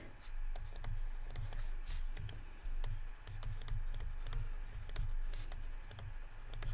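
Stylus tapping and clicking on a drawing tablet while words are handwritten: many irregular light clicks with soft low knocks beneath them.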